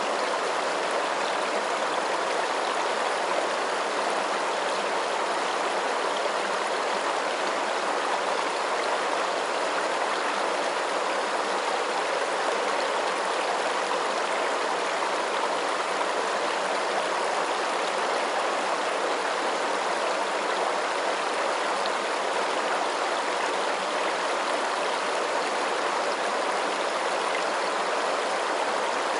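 Running water, like a stream, rushing steadily without breaks or changes.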